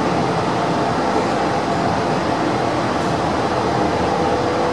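Rome Metro Line C train running at speed, heard from inside the carriage: a steady rumble of wheels on rail and running gear, with a faint steady whine.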